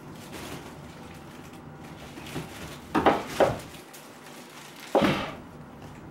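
Rustling and scraping from a Bengal cat playing inside a fabric play tunnel on a wooden floor: three short bursts, two close together about three seconds in and one about five seconds in.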